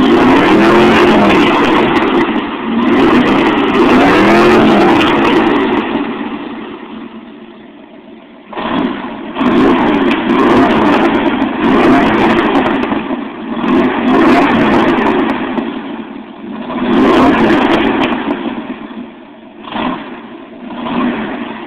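1979 Corvette's modified V8 rumbling through Hooker side pipes with glasspack mufflers, revved again and again in short blips that swell and fall back. It settles lower for a couple of seconds, then about halfway through comes back with a run of quick revs that ease off near the end.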